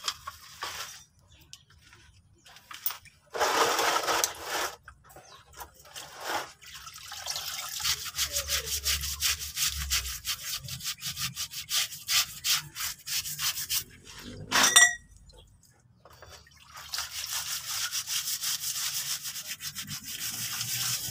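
Hands and a stiff brush scrubbing gear-oil-soaked truck drum-brake parts, the backing plate and then a brake shoe wet with oil: quick runs of rubbing strokes, about seven a second, with a short loud knock about two-thirds through. The oil got in past a worn axle seal.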